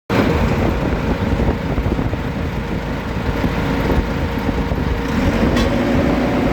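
Combine harvester running: a steady, heavy engine-and-machinery drone. A low hum grows stronger about five seconds in, with a short click just after.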